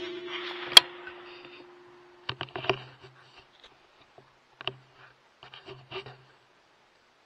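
The echo of a rifle shot fired a moment before dies away over the first second and a half, with a sharp click a little under a second in. After that come scattered faint clicks and rattles, about two and a half, four and a half and six seconds in, from the rifle and scope being handled.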